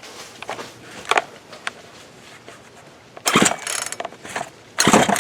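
Recoil starter of a Craftsman 42cc two-stroke chainsaw being pulled hard twice in the second half, a rattling whir as the engine turns over without catching on its old, stale fuel. Fainter knocks of handling come before the pulls.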